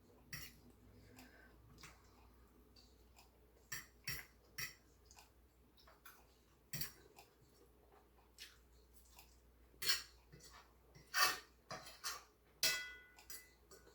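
Eating sounds: spoon or chopsticks clinking and tapping against a bowl now and then, with quiet chewing between. The clicks are short and scattered, the loudest about ten and eleven seconds in, and one near the end rings briefly.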